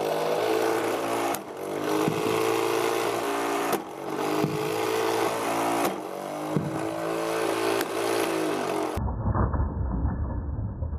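Flywheel shooter on a bare 12 V 6000 RPM motor with a 96 mm wheel, spinning with a steady whine while wiffle balls are fired through it about every two seconds. Each shot is a short thud, and the whine dips and then spins back up. Near the end the sound changes to a muffled low rumble.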